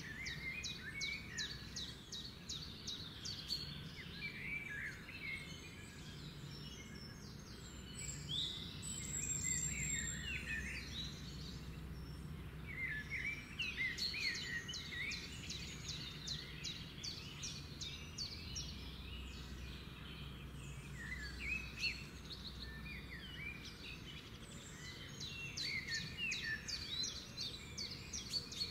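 Small birds chirping and singing in bouts of quick chirps and rapid trills, over a low steady hum.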